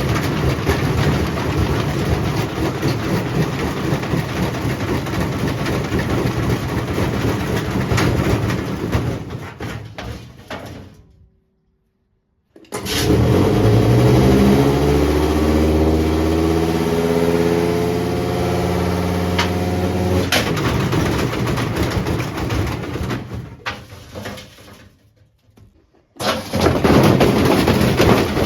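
Servis washing machine running a spin with a brick inside the drum: a loud mechanical clatter with occasional sharp knocks. It winds down and stops about 11 seconds in, then starts again with a motor whine rising in pitch as the drum speeds up. It runs down again near the end and starts up once more.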